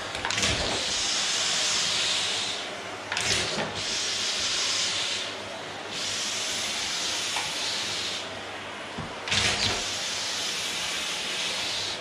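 Vacuum cleaner running on a wooden floor, its hiss swelling and easing in four long strokes as the floor nozzle is worked back and forth. There are three brief knocks, near the start, about three seconds in and about nine seconds in.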